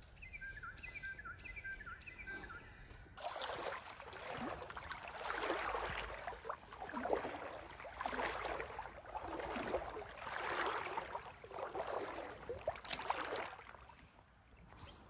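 A bird singing short repeated whistled phrases, then water sloshing and splashing in rhythmic surges about every second and a half as someone wades through a shallow stream.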